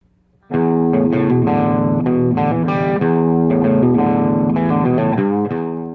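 Intro music: a guitar playing a run of chords and notes, starting about half a second in.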